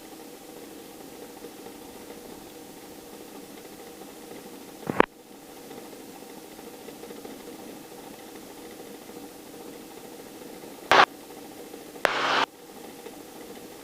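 Steady drone of a tour helicopter running, heard inside its cabin, with a few fixed humming tones over a faint hiss. It is broken by three brief loud bursts about five, eleven and twelve seconds in, the last lasting about half a second.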